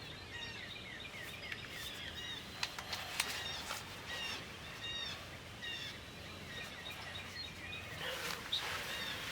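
Small songbirds chirping: a steady run of short, high, quick chirps repeating over and over, with a few sharp ticks about three seconds in.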